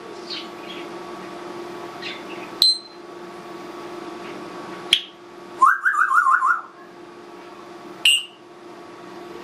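Congo African grey parrot making mimicked sound effects: a sharp click with a brief high ping, another click about two seconds later, then a quick run of about five rising whistled notes, and a short chirp near the end.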